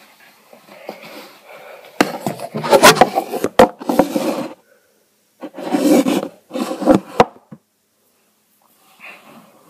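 Rustling and rubbing of material being handled close to the microphone, in two loud spells with a few sharp knocks among them.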